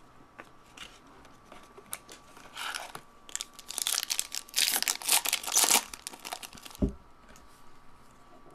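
A trading-card pack wrapper being torn open and crinkled, a run of sharp crackling tears over a few seconds after some small handling clicks, with a brief low bump near the end.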